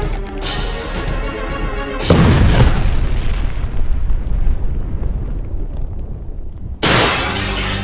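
Explosion sound effect: a sudden loud boom about two seconds in that cuts across the music, its rumble fading over several seconds. Music starts again near the end.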